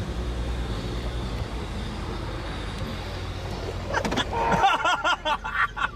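Truck engine running steadily with a low drone. About four seconds in, people's voices break in loudly over it.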